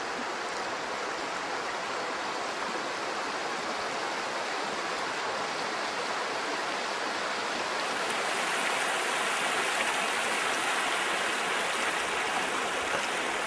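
Río Bonito flowing: a steady rush of river water, growing a little louder about eight seconds in.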